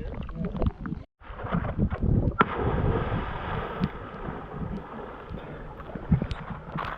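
Wind buffeting the microphone over open water, an uneven low rumble with a steady hiss and a few light knocks; the sound drops out completely for a moment about a second in.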